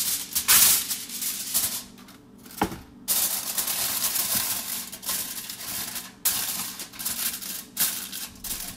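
Aluminium foil crinkling and rustling as it is pressed into a metal loaf pan, in irregular crackly bursts with a short lull about two seconds in.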